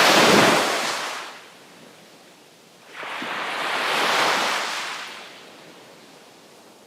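Sea waves breaking on the shore: one wave crashes right at the start and washes out over about a second and a half, then a second wave swells about three seconds in, breaks and fades, with a low hiss of water between.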